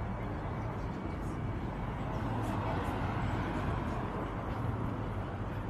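City street ambience: steady traffic noise with a low hum, swelling a little near the middle, as a vehicle passes.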